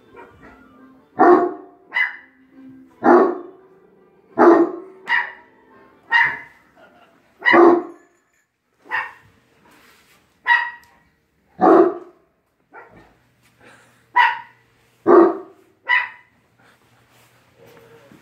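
Irish Wolfhound barking in a long series, about one bark a second. Deep barks alternate with higher, sharper ones from a small Manchester Terrier.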